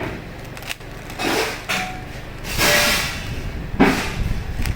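Plastic 3x3 Rubik's Cube being scrambled by hand: layers clicking and rustling as they are turned, with a few sharper clacks.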